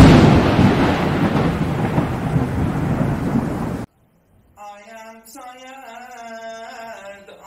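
Thunder-like crash sound effect: a sudden loud boom that trails off into a rain-like rumble and cuts off abruptly about four seconds in. After a short silence, a voice sings a sustained, slowly wavering melody.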